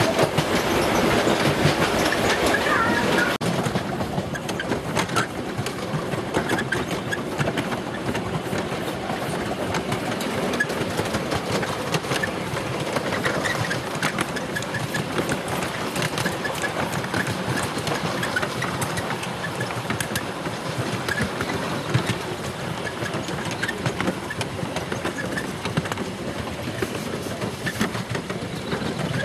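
Miniature railway passenger carriages running along the track with a steady rumble and scattered clicks of the wheels over the rail joints. The sound is louder for the first three seconds or so, while the train is inside a tunnel.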